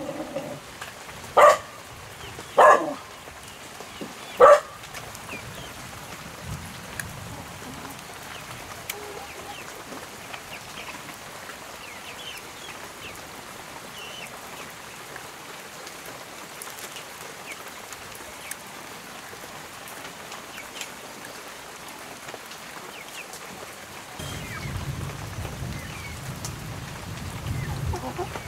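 A dog barks three times, short sharp barks in the first five seconds, over a steady hiss of rain falling. Near the end a low rumble comes in under the rain.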